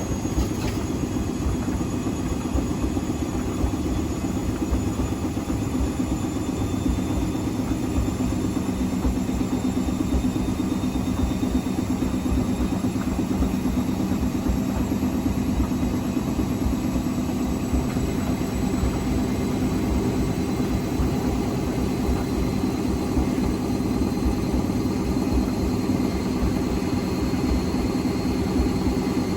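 Hotpoint Extra WMXTF942 washing machine drum spinning in a rinse spin with an unbalanced load: a steady motor hum over a pulsing low rumble, with a faint motor whine that rises slowly in pitch as the drum gathers speed. A couple of knocks come right at the start.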